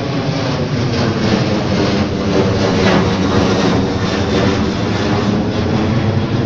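Boeing 737-900 jet airliner passing low overhead, its jet engines making a loud, steady noise with a whine of engine tones that swells a little toward the middle.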